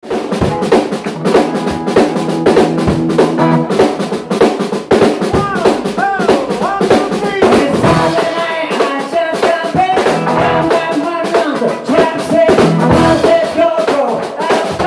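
Live rock-and-roll band playing: a drum kit beating steadily under electric guitars and bass guitar, with a man singing lead at the microphone.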